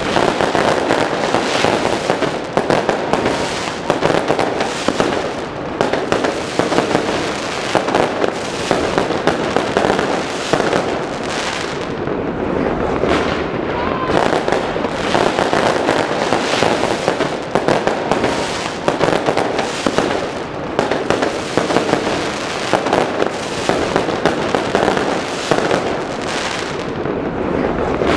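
Fireworks going off in a dense, continuous barrage of overlapping bangs and crackles, with no pause.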